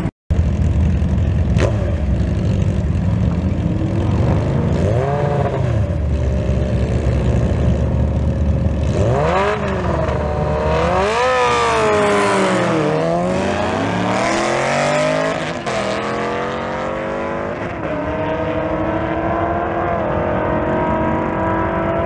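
Gen 2 Kawasaki ZX-10R's 998 cc inline-four sport-bike engine on a drag strip launch: a few rev blips about five seconds in over the rumble of a car's engine at the line, then hard revving at launch about nine seconds in and a run of quick upshifts as it accelerates flat out away, the engine pitch climbing steadily near the end.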